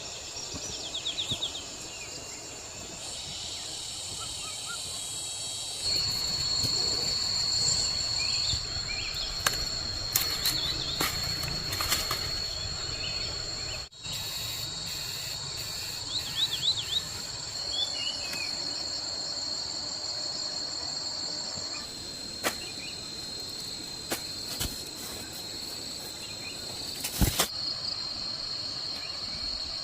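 Steady high drone of insects with a few short bird chirps, broken by several sharp knocks, the loudest one near the end.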